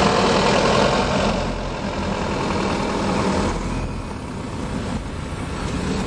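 Car engine running with road noise as the car drives slowly, heard from inside the car. The noise is louder for the first second or so, then eases and drops a little more about three and a half seconds in.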